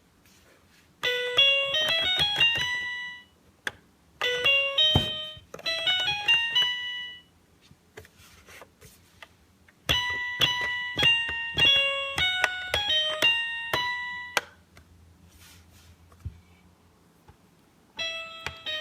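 Teletubbies toy keyboard on its flower setting sounding quick runs of bright electronic notes, many climbing in pitch. The notes come in four spells with pauses of a second or more between them, the last starting near the end.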